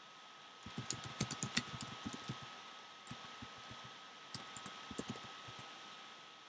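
Typing on a computer keyboard: a quick run of keystrokes about a second in, then two shorter runs of key clicks.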